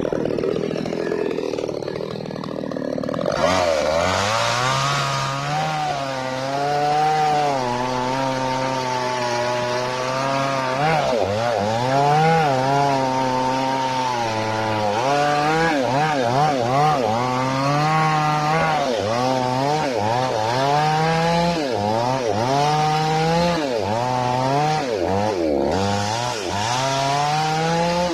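Falcon mini chainsaw's small two-stroke engine warming up, its throttle opened and eased off again and again so the pitch rises and falls in repeated surges from about three seconds in.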